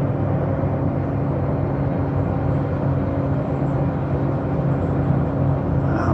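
Railroad rail grinder running on the track: a steady heavy-machinery drone with a low, even engine hum.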